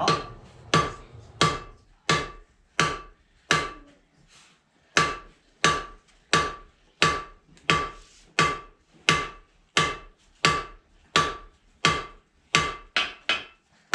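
Blacksmith's hammer striking hot steel on an anvil in an even rhythm, about one and a half blows a second, each with a short ring, drawing out the stem of a forged leaf. A brief pause comes about four seconds in, and the blows come quicker near the end.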